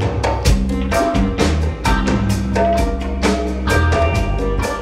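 Live band playing: electric guitars and electric bass over a drum kit keeping a steady beat.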